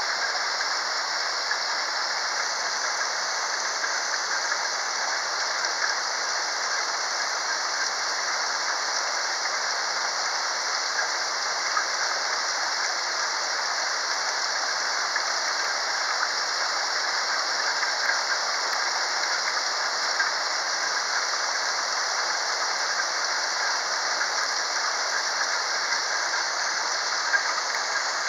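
Steady rain falling and pattering on surfaces, an even hiss with no thunder.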